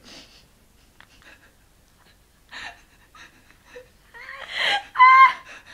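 A girl's nonverbal sounds: scattered breathy sniffs and gasps, then a short high-pitched squeal about five seconds in, the loudest moment.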